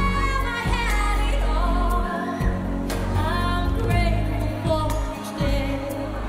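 A song with a singer holding long notes that slide up and down in pitch, over a steady bass line.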